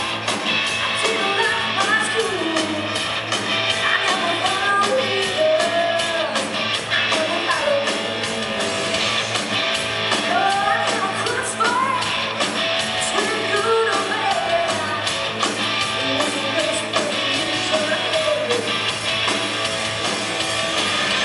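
Live hard rock band playing: electric guitars, bass and drums, with a woman singing lead. Heard from among the audience in a large hall.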